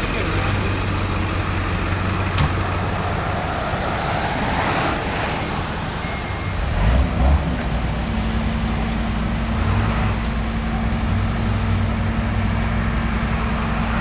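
John Deere 332 skid steer's diesel engine running. A couple of clunks come about seven seconds in, and after them the engine holds a steadier, higher hum.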